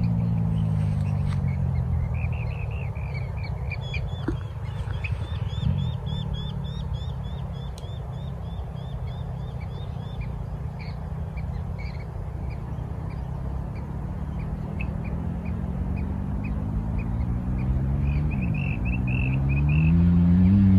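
Motorbike engine, its note dropping away in the first second and climbing again in rising revs near the end, over a steady low rumble. Birds chirp repeatedly in between.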